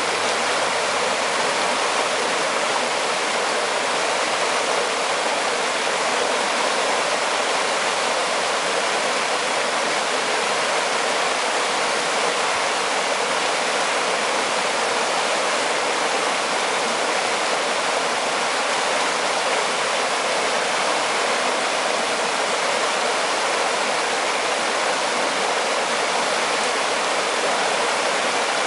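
Mountain river rushing steadily over rocks: an even, unbroken water noise.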